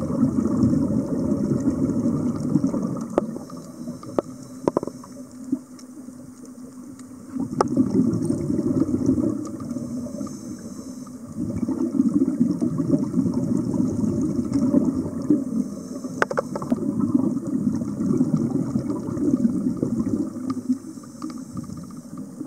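Muffled underwater water noise heard through a submerged camera: low gurgling and bubbling that comes in surges, easing off twice, with a few faint clicks.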